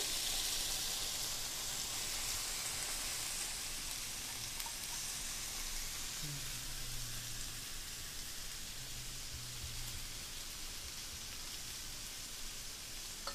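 Pork chops sizzling on a round electric indoor grill: a steady hiss that slowly fades.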